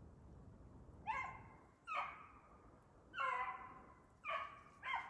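Hounds baying as they run a hare's track: five calls about a second apart, each dropping slightly in pitch as it starts.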